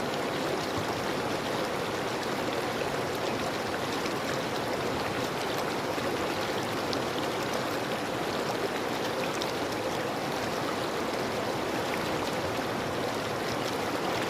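River water flowing steadily over rocks, with small splashes and gurgles in an even rush.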